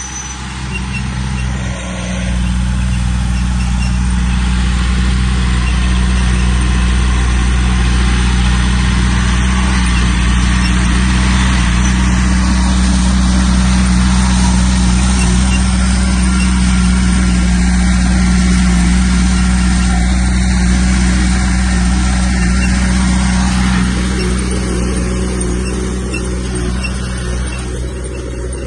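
Heavy earthmoving equipment's diesel engine running steadily under load. It gets louder about two seconds in and eases off somewhat near the end.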